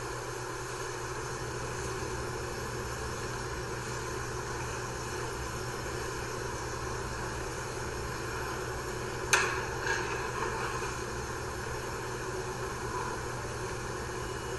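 Steady background noise with a low hum, broken about nine seconds in by a sharp knock and a smaller second knock just after.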